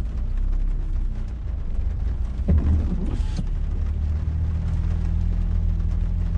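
Car engine and road noise heard from inside a Renault's cabin while driving slowly in town, a low steady rumble. A brief louder knock and hiss comes about two and a half to three and a half seconds in, and a steady engine hum joins in the second half.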